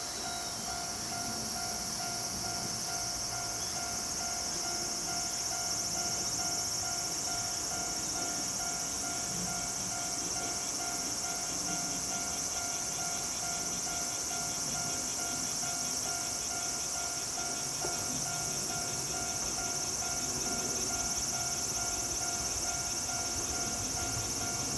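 Insects chirring steadily in a high, dense drone, with a faint steady mid-pitched tone underneath.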